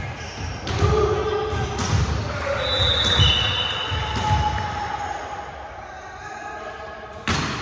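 A ball bouncing on a hardwood gym floor: a run of dull thumps about every half second, echoing in a large hall, with voices behind. There are a couple of brief high squeaks about three seconds in and one sharp smack near the end.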